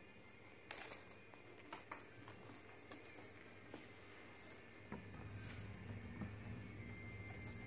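Faint, scattered light taps and skitters of a kitten's paws on a hardwood floor as it pounces at a feather wand toy. A faint low hum sets in about five seconds in.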